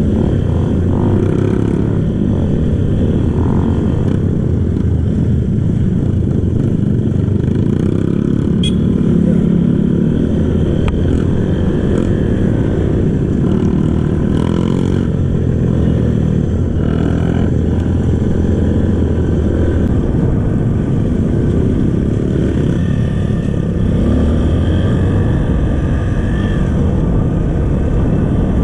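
Kawasaki KLX trail bike's single-cylinder four-stroke engine running through its stock exhaust while being ridden, loud and steady with small rises and falls in revs.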